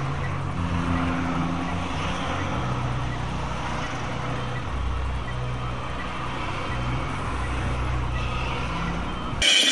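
Steady low hum of an idling car engine and street traffic as picked up by a dashcam, with a faint tick about twice a second. Near the end the sound cuts abruptly to a louder, harsher noise.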